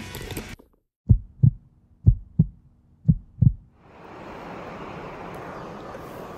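Heartbeat sound effect: three low double thumps about a second apart. A steady rushing noise then fades in from about four seconds in.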